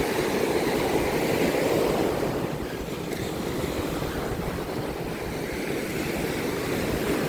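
Ocean surf washing up on a sandy beach: a steady rushing that swells and eases.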